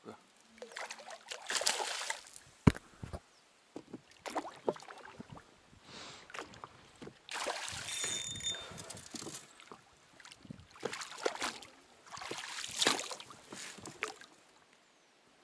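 Water splashing in repeated strokes, one every two to three seconds, with one sharp knock about three seconds in.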